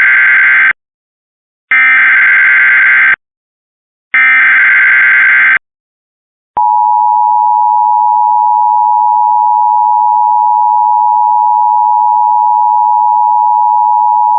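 Emergency Alert System activation: three short bursts of screeching digital header data, each about a second and a half long, ending about five and a half seconds in. About a second later a steady two-tone attention signal begins and holds for about eight seconds, the alarm that announces the flash flood warning.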